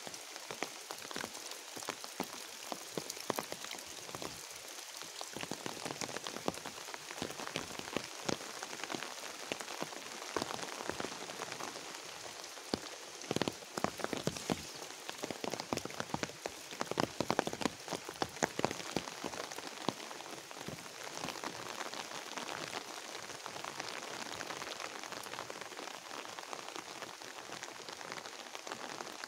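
Steady rain falling on vegetation and the ground, with many individual drops ticking close by; the drops come thicker and louder about halfway through.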